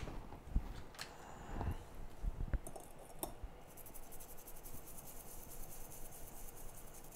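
Small clicks and light knocks from hand tools being handled over a phone logic board during desoldering. About halfway through, a fast, even, high-pitched ticking starts and keeps going.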